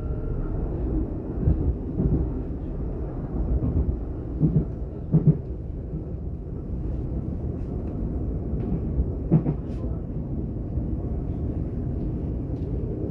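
Class 422 S-Bahn electric multiple unit running, heard from inside the passenger car: a steady low rumble from the running gear, broken by a few sharp clunks, the loudest near five seconds in and again near nine and a half seconds.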